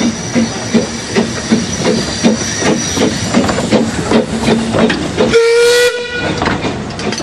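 Narrow-gauge steam locomotive Dolgoch, an 0-4-0 well tank, working past with its train, its exhaust beating evenly about two and a half times a second. A short whistle blast of under a second comes about five seconds in.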